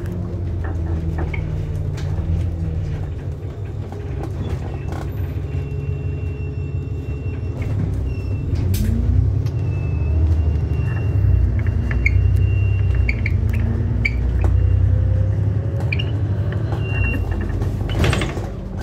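Interior running noise of an ADL Enviro400 MMC double-decker bus on the move: a steady engine and drivetrain rumble that rises in pitch and grows louder about eight seconds in as the bus picks up speed, with light cabin rattles and a sharp knock near the end.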